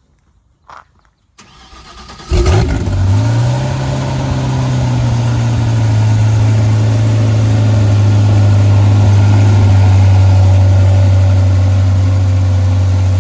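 Zenvo TSR-S's 5.8-litre twin-supercharged V8 starting up: it catches about two seconds in with a short rise in revs, then settles to a steady, loud idle.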